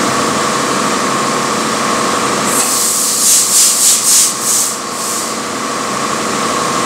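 Large diesel engine running in an engine room: a loud, steady drone with a constant whine over it. From about two and a half seconds in, some six short hissing pulses come in quick succession for a couple of seconds.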